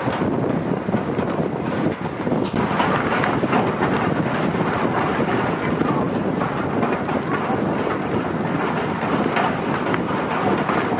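Hail and rain pelting wet pavement: a dense, steady patter of hailstones hitting asphalt, with many small sharp ticks.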